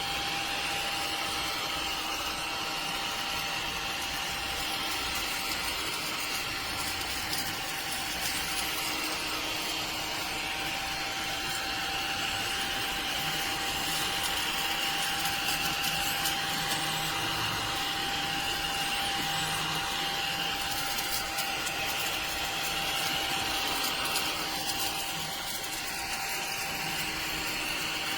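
Cordless mini desktop vacuum cleaner's small motor running steadily with a constant whine, dipping slightly near the end.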